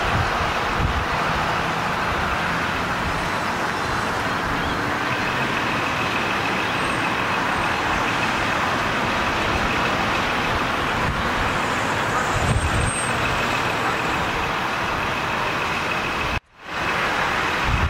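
A truck engine running steadily, a continuous rumble with a faint high whine from about five seconds in. The sound cuts out abruptly for under a second near the end.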